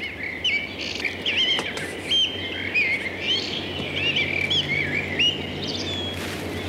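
Birdsong: a quick, continuous string of short chirping notes that swoop up and down.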